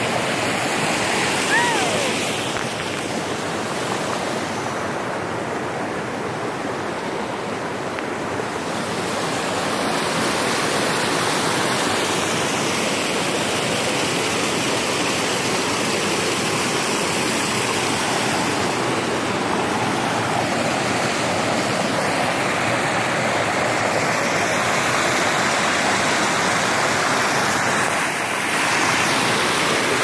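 Water rushing steadily over the rock lip of a waterfall, heard close up right where it starts to fall.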